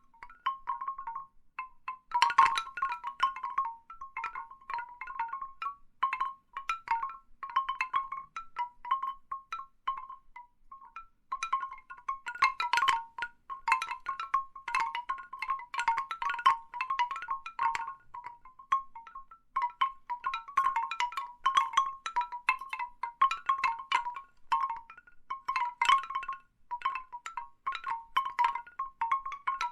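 Large bamboo wind chimes knocking together in irregular flurries of hollow clonks, each ringing at much the same pitch. The flurries thin out briefly about a third of the way in, then grow busy again.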